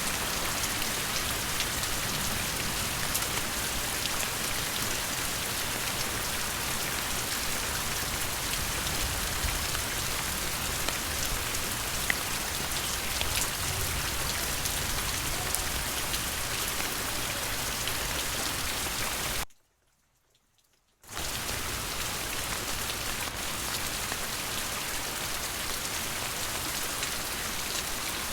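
Steady rain falling, an even dense hiss of many drops with faint individual ticks. The sound cuts out abruptly for about a second and a half about two-thirds of the way through, then resumes.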